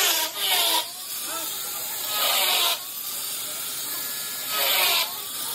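Electric angle grinder working an orange plastic pipe in short passes: a loud hissing rasp each time the disc bites, about every two seconds, with the motor's whine wavering in pitch in between.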